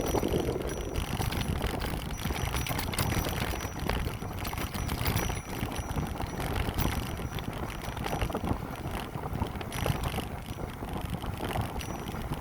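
Riding a bicycle at speed: a steady rush of wind on the microphone, with tyre and drivetrain noise, and a faint high thin tone that comes and goes.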